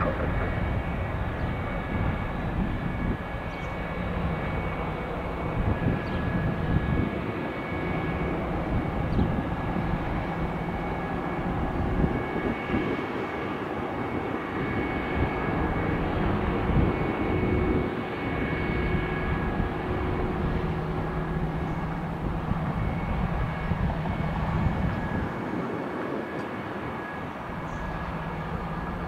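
Airbus A220-100 jet airliner's Pratt & Whitney PW1500G geared turbofan engines running steadily, a high whine of two held tones over a low rumble.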